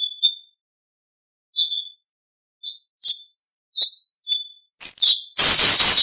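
Wild songbirds chirping in short, high notes, sparse at first and coming faster in the second half. Near the end a loud, harsh burst of noise lasting about half a second.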